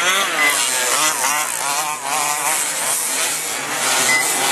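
Several RC short-course race trucks' motors revving on the track, their pitch swinging quickly up and down as they accelerate and brake. A short high beep sounds twice.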